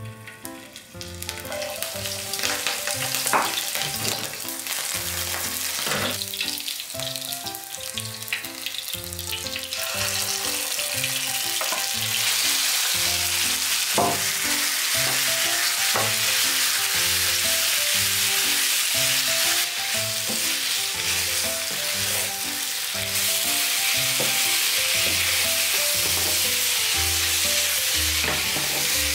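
Oil sizzling in a nonstick frying pan as chopped green onion fries to flavour the oil, the sizzle building over the first several seconds. From about halfway, after a knock as marinated pork is dropped in, it turns into a loud, steady frying sizzle with stirring, and a few clacks come from the pan along the way. Soft background music with repeating low notes plays underneath.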